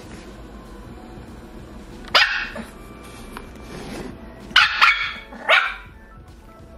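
Small Pomeranian puppy barking four times in short, high-pitched yaps: once about two seconds in, then three quick barks close together near the end.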